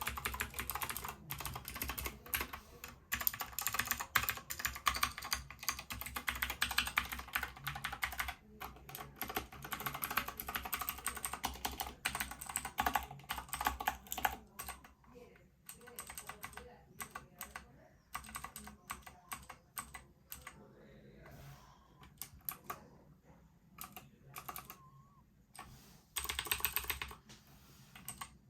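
Fast typing on a Keychron K2 mechanical keyboard with clicky Gateron G Pro Blue switches and PBT keycaps. A dense run of keystroke clicks lasts for about the first fourteen seconds, then the keystrokes come sparser, with one more fast burst near the end.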